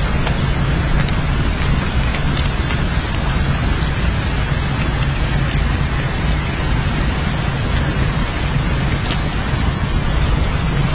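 Steady heavy rain: a dense even hiss with scattered sharp drop ticks and a constant low rumble beneath.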